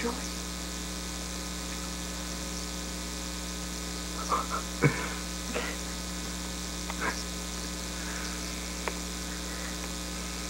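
Steady electrical mains hum on a home camcorder recording, with a few faint, brief sounds about halfway through.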